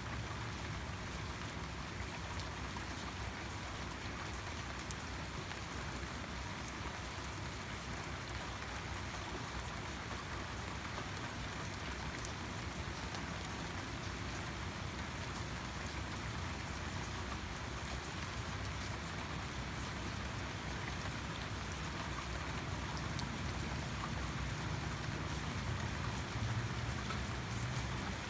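Steady rain falling, a continuous hiss with fine scattered drop ticks and a low rumble underneath that grows slightly louder near the end.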